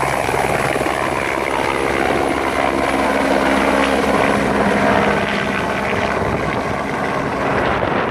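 Light single-engine helicopter climbing away after take-off: a steady turbine whine and rotor beat that grow fainter as it gains height.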